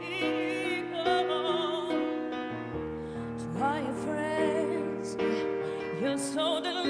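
A woman singing a slow pop ballad live, with strong vibrato, over sustained piano chords. About halfway through her voice slides up into a held note.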